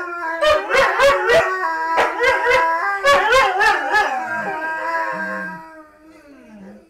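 Borzoi howling in long wavering notes, broken by sharp yips. It dies away to a quieter, lower moan over the last couple of seconds.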